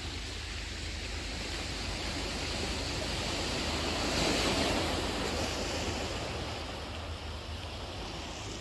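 Sea waves washing on the shore, one wave swelling up about four seconds in and easing off, with wind rumbling on the microphone.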